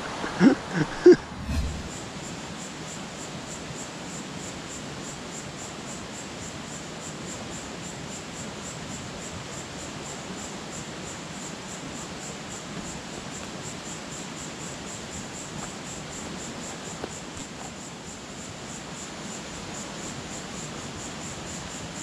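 An insect chirping in a fast, even, high-pitched pulse over a steady rush of running water. A few loud knocks come in the first second or two, before this.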